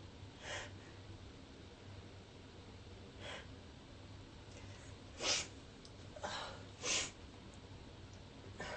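A woman sneezing harshly with bronchitis: a run of short, sharp sneezes and breaths, the two loudest about five and seven seconds in.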